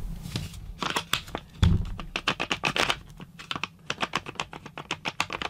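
Rapid, irregular clicking and knocking as the metal gear head of a Kobalt 24V XTR 1/2" impact wrench is pushed and wiggled against its plastic motor housing, with one heavier knock a little under two seconds in. The head won't seat: the brushless motor's rotor has play, so its gear and bearing don't line up with the planetary gear and the bearing seat.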